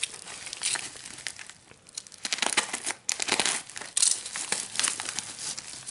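Black plastic shipping bag crinkling and rustling as it is handled and opened, in a series of crackly bursts, loudest a little past the middle.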